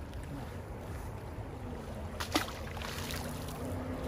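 Steady low rumble of wind and fast-flowing canal water, with one brief sharp sound about two seconds in.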